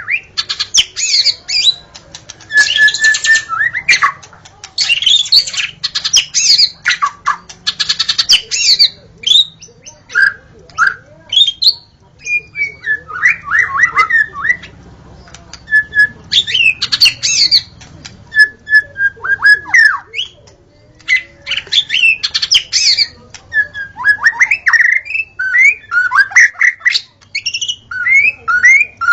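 Wild white-rumped shama singing a loud, varied song of clear whistled notes and fast sweeping phrases, in bursts a second or two long with short pauses between them.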